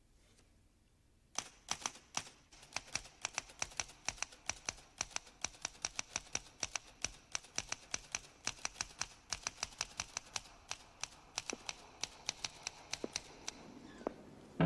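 Typewriter keys being struck in a quick, uneven run of clacks, starting about a second and a half in and stopping shortly before the end.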